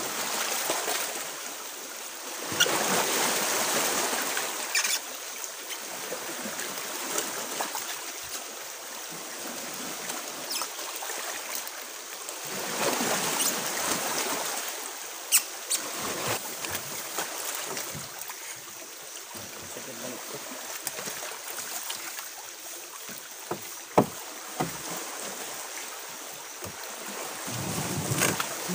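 Sea water washing and lapping against the hull of a small fishing boat, swelling and easing every several seconds, with a few sharp knocks from handling on board.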